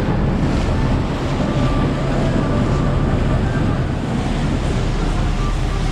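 Wind buffeting the microphone and water rushing past the hull of a motorboat under way, with a steady low engine drone beneath.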